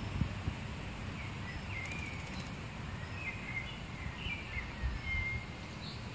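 Outdoor garden ambience: a steady low rumble, with small birds chirping and twittering from about a second in until near the end. A couple of soft thumps right at the start.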